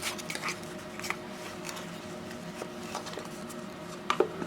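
Small clicks and light rustles of nail polish bottles and their packaging being handled, with a couple of sharper clicks near the end, over a faint steady hum.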